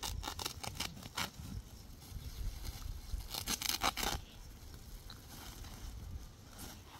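Woven plastic sack being ripped apart along its seam by hand: a run of quick rips in the first second, then a longer rip a little past the middle.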